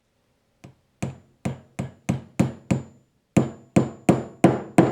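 A hammer tapping repeatedly, about three blows a second, each with a short high metallic ring. The taps start faintly, pause briefly a little past halfway, and grow louder toward the end.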